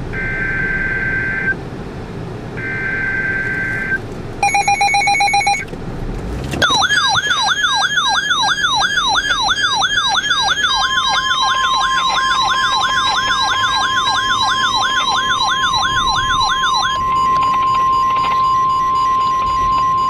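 A RadioShack NOAA weather radio sounds a severe thunderstorm warning. Two buzzy data-burst screeches of about a second each (the SAME alert header) are followed by a short harsh buzz. Then comes a warbling siren alarm sweeping about three times a second, joined about halfway through by the steady 1050 Hz warning alarm tone, which carries on alone after the siren stops near the end.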